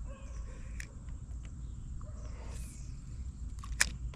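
Outdoor ambience with a steady low rumble and a few sharp clicks, the loudest one near the end.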